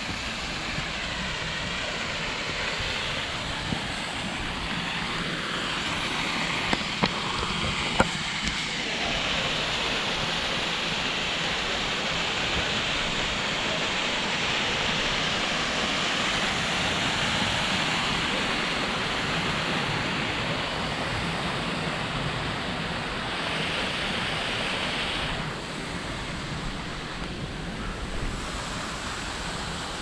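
Waterfall rushing: a steady wash of falling and splashing water, loudest through the middle and dropping off fairly suddenly a little before the end. A few sharp clicks sound about seven and eight seconds in.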